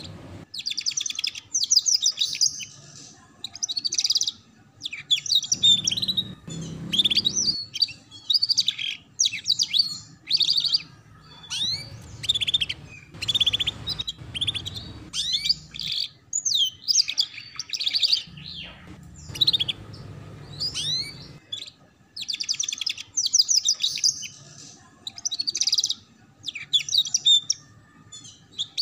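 Canary singing in the chattering 'ngeriwik' style: short bursts of rapid trills and quick sweeping notes, one phrase every second or two with brief pauses between them.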